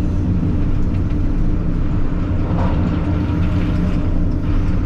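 Diesel engine of a tracked earthmoving machine running steadily under load while spreading rock, with a scraping rattle a little past halfway through.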